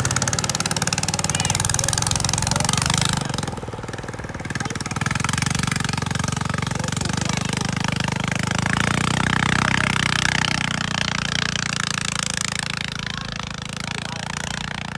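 An engine running steadily, with a dip in level about three and a half seconds in before it picks up again.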